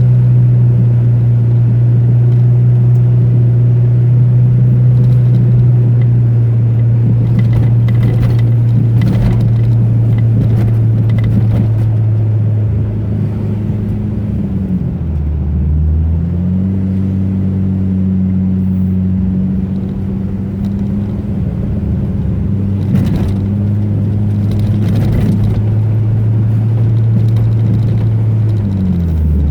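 Car engine running steadily at cruising speed, its note dropping to a lower pitch about halfway through and again near the end, with bumps and rattles scattered over the drive.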